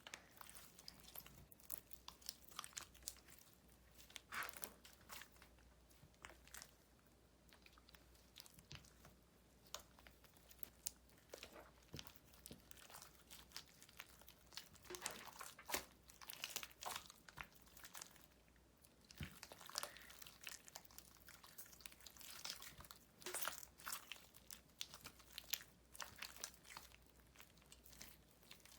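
Clear slime being squeezed and stretched by hand, giving quiet sticky crackles and clicks, some in quick clusters.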